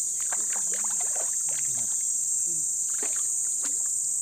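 Shallow muddy pool water sloshing and splashing in many small, quick strokes as hands grope through it for fish, over a steady high-pitched insect drone.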